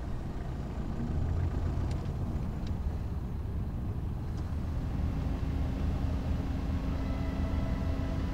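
Low, steady rumble of a vehicle driving. Held music tones fade in about halfway through and build toward the end.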